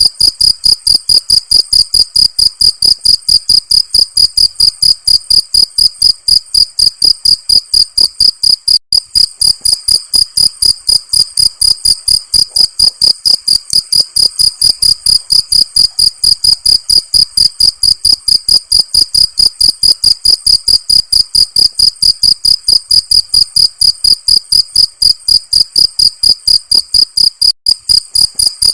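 Cricket chirping in a steady, even rhythm of about three high-pitched chirps a second.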